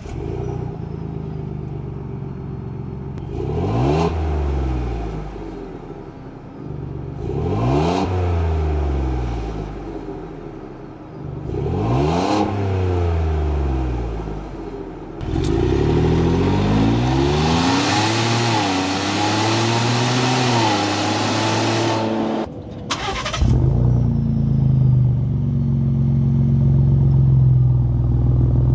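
Ford Bronco with its factory exhaust starting and idling, then revved in three quick blips about four seconds apart, then held at higher revs for several seconds. About 23 seconds in, it cuts to the same Bronco fitted with a Milltek high-clearance cat-back exhaust starting up and idling with a louder, deeper note.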